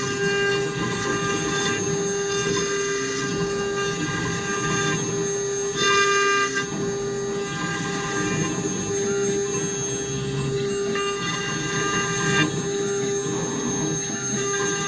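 CNC router spindle running with an end mill cutting a wooden workpiece turned on a rotary axis: a steady machine whine over the rasp of the cut. It swells briefly twice, about six seconds in and again late on.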